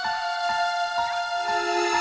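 Background music: a melody with sustained notes, a new note about every half second.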